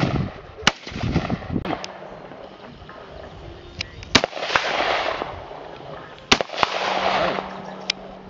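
Rifle shots: a semi-automatic rifle fired one shot at a time, with three loud cracks a second or more apart, the last two each trailed by about a second of rolling echo. Fainter cracks fall between them. From a few seconds in, the shooter is a Kel-Tec RFB bullpup in .308.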